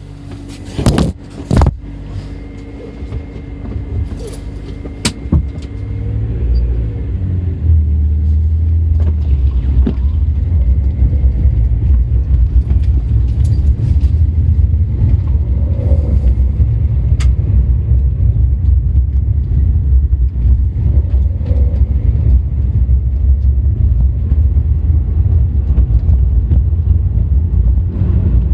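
Toyota Celica T Sport engine running, a steady low drone that builds over the first several seconds and then holds. A few sharp knocks come near the start.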